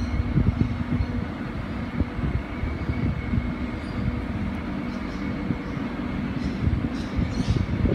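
Metro Trains Melbourne suburban electric train approaching along the track toward the platform: a steady low rumble with a faint, steady high tone running through it.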